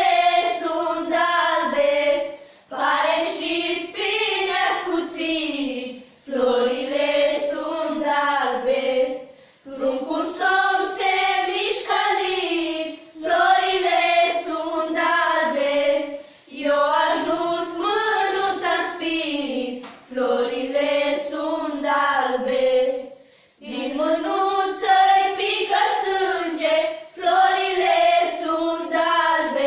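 A group of girls singing a traditional Romanian Christmas carol (colindă) together, without instruments, in phrases of three to four seconds with a short breath between each.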